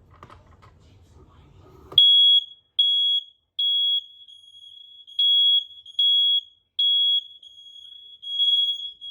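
Household smoke alarm sounding its test on a held button: a loud, high-pitched beep in groups of three with a pause between groups (the temporal-three alarm pattern), starting about two seconds in. The other interconnected alarms in the house sound fainter at the same pitch between the beeps.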